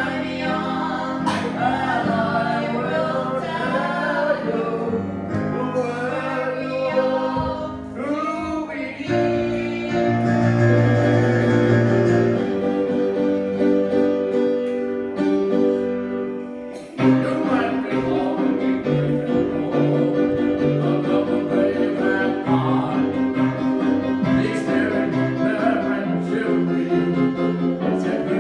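Live piano music with a singing voice, the voice wavering in pitch in the first few seconds, then steadier held notes and piano chords.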